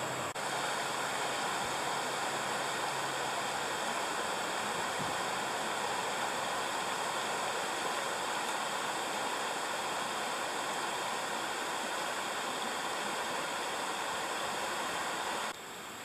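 Shallow stream water running and trickling through rocks, a steady rush. It cuts off suddenly shortly before the end, leaving a quieter background.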